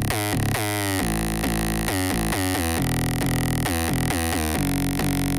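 Electronic instrumental music without vocals: a synthesizer riff of short notes that each slide down in pitch, a few per second, over a steady bass.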